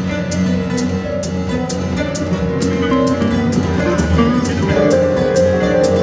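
Instrumental band music: a drum kit keeps a steady beat of sharp strokes, about two or three a second, under sustained melodic instruments.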